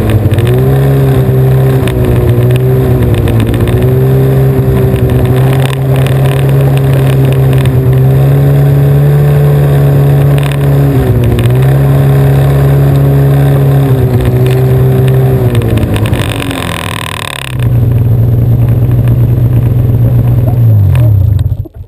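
Snowmobile engine running hard on a top-speed run, with wind rushing over the microphone. Its pitch dips briefly several times as the throttle eases. Near the end it winds down and falls away as the sled slows to a stop.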